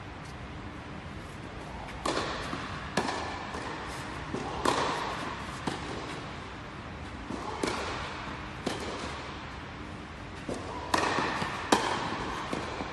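Tennis balls struck by rackets during a rally in an indoor hall: a string of sharp hits, several about a second apart, each with a short echo.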